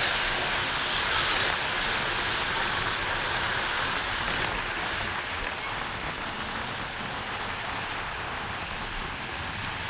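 Steady rumble and hiss of a moving bus, road and wind noise with no distinct engine note, a little louder in the first second or two and then easing off slightly.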